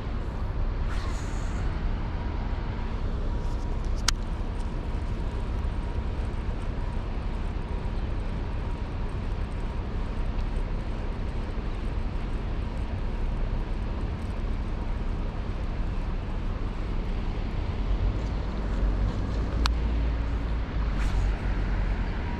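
Steady outdoor rushing noise with a deep rumble underneath, broken by a sharp click about four seconds in and another near the end.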